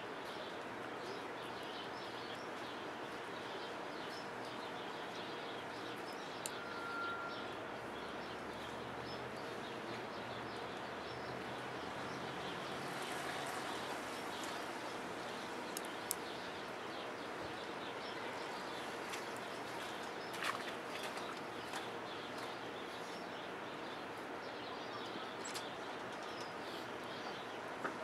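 City street ambience: a steady background hiss of the street with small birds chirping here and there. A few sharp clicks or taps stand out, the clearest about sixteen and twenty seconds in.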